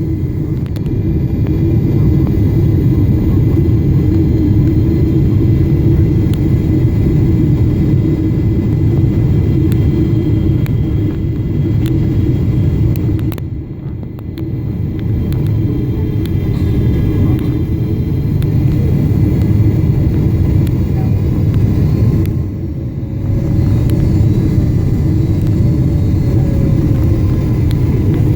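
Steady low rumble of a Boeing 777-300ER during its landing: its GE90 engines and the rush of air. It briefly goes quieter twice, about halfway through and about two-thirds of the way through.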